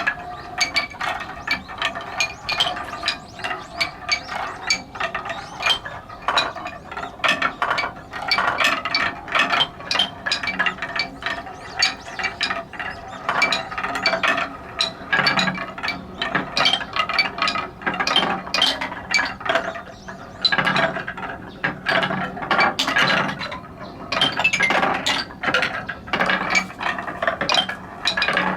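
Many big wooden balls rattling down a wooden stair-step marble run: a continuous, dense clatter of quick knocks as they drop from step to step.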